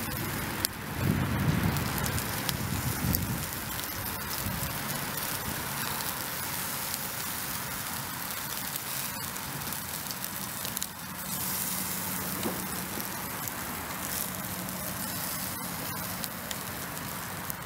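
Chicken pieces sizzling on a charcoal grill, a steady hiss with many small crackles from the coals and dripping juices. A low rumble comes and goes in the first three seconds.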